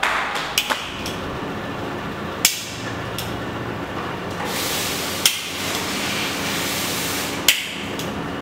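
Nail clipper snapping shut in sharp single clicks, a quick pair and then one every two to three seconds, over a steady hiss.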